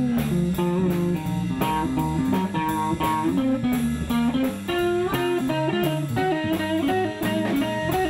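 Live blues band playing: an electric guitar takes a lead line of single notes, some bent in pitch, over drums and bass guitar.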